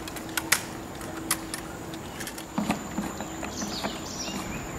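Several short, sharp clicks and knocks of hard plastic and metal parts as a Halcyon PVR-BASC semi-closed rebreather is unclipped and taken apart by hand.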